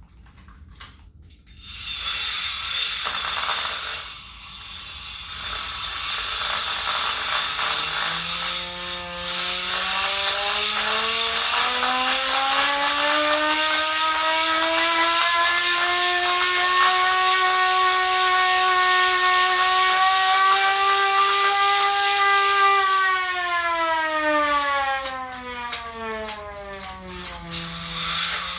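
Hand-crank siren being cranked up: first a whooshing, whirring rush of air and gearing as the rotor spins up, then a wail that rises in pitch over several seconds. It holds one steady high tone for about six seconds, then slides down in pitch as the rotor slows near the end.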